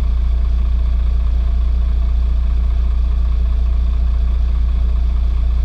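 Fire engine's engine running with a steady, unchanging low drone.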